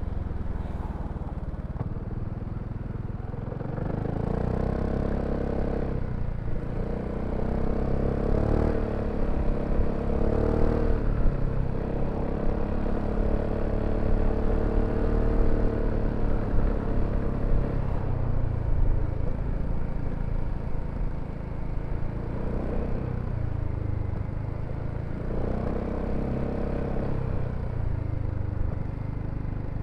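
BMW C400X scooter's single-cylinder engine running under way, its pitch rising and falling several times as the throttle is opened and eased off, with a steadier stretch in the middle.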